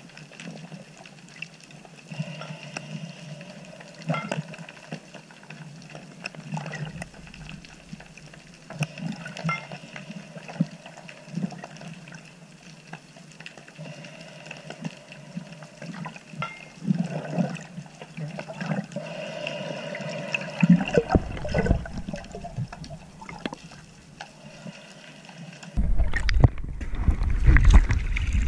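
Muffled underwater water noise with scattered faint clicks. It turns to louder sloshing after about 21 seconds, and about 26 seconds in it jumps to loud splashing as the camera breaks the water's surface.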